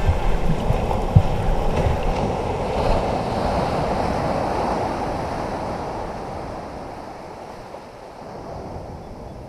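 A steady rush of ocean water noise, with no tune in it, slowly fading out from about halfway through.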